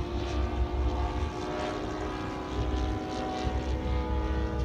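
Engine and propeller of a radio-controlled model warbird in flight, a steady drone with several evenly spaced overtones.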